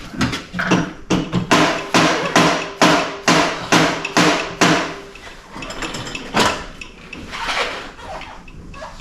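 Hammer blows on a motorcycle frame part: about a dozen quick, even strikes, roughly two a second, over the first five seconds. A single heavy blow follows about six and a half seconds in, then a few lighter knocks.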